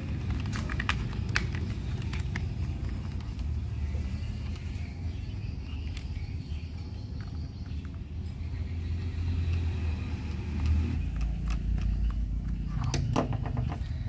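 Light plastic clicks and taps from hands working on a toy RC car's underside: the battery connector pushed home and the battery cover closed with a screwdriver. A steady low rumble runs underneath, with a cluster of clicks near the start and another near the end.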